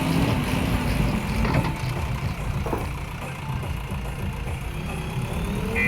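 Heavy diesel machinery engine running steadily, with two short knocks about one and a half seconds in and again a second later.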